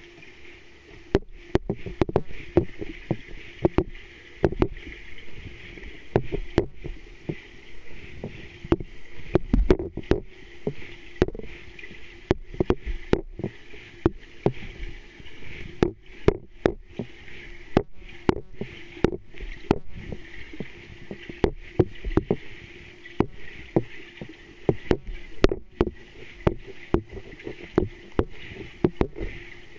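Swimming pool heard from underwater: a steady hum with frequent, irregular clicks and thumps from swimmers' strokes and kicks carried through the water.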